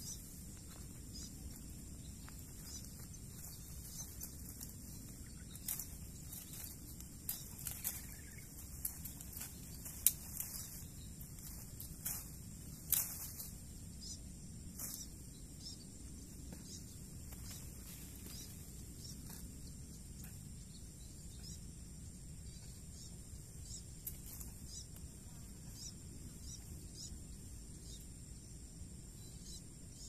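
Leaves and twigs rustling and snapping as tree branches are pulled and handled, in a run of short sharp clicks mostly in the first half, over a steady low outdoor background.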